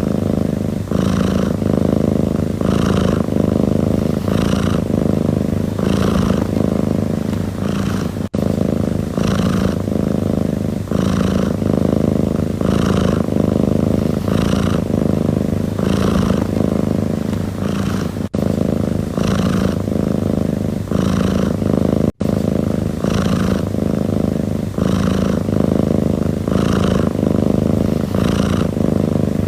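Domestic cat purring steadily: a continuous low rumble with a breathy swell about once a second as the cat breathes in and out. A few split-second dropouts break it.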